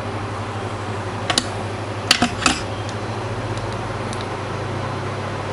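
Hot air rework station's blower running with a steady hum and an even rush of air. A few sharp clicks break in, two just over a second in and three more close together about two seconds in.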